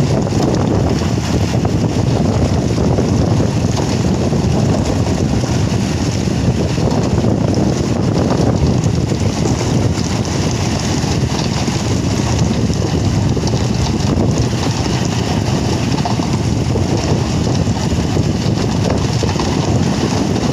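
Steady, loud rumbling of a transit mixer discharging concrete, mixed with wind on the microphone.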